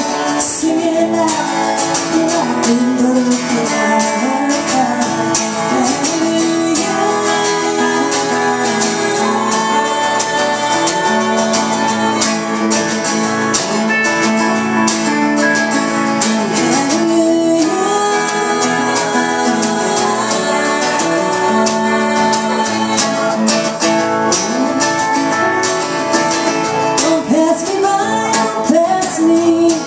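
Live country-folk song played on acoustic guitar, electric guitar and lap steel guitar, with women singing.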